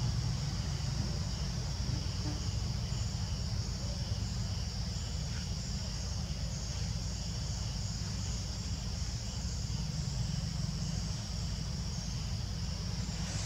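Steady chorus of insects trilling, a high continuous buzz that runs unbroken, over a low steady rumble.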